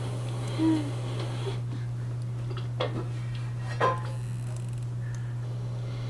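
A steady low hum, broken by a short soft knock under a second in and two sharp clicks about three and four seconds in.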